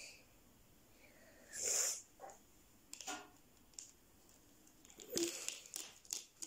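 Small plastic toy animal figures and plastic palm trees being handled and set down on a tabletop: scattered light clicks and taps, clustering around five to six seconds in. A short breathy burst, like a child's sniff, comes just under two seconds in.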